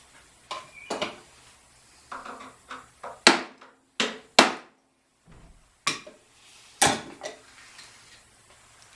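Metal hand tools clanking and knocking: a string of sharp, irregular clanks, the loudest a little past three seconds in, twice around four seconds, and near seven seconds.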